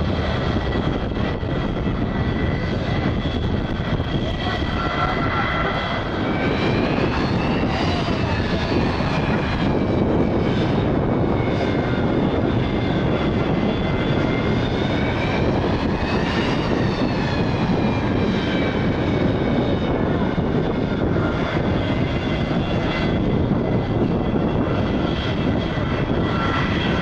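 Boeing 747-400's jet engines running as it taxis: a steady rumble under a high whine that rises and falls in pitch twice.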